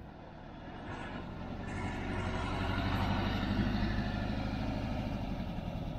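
Volkswagen bay-window camper van's air-cooled flat-four engine running as the van drives slowly past, growing louder over the first three seconds and then holding steady.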